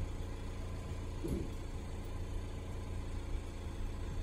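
Steady low engine rumble, with a soft thump about a second in.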